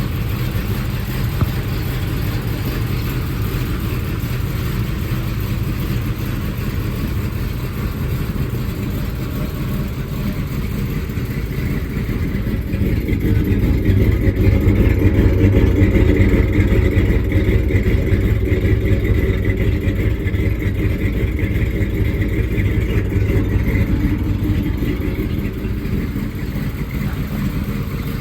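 1979 Dodge Lil Red Express pickup's 360 V8 running, warming up after a cold start. The engine note swells louder about halfway through, then slowly eases back.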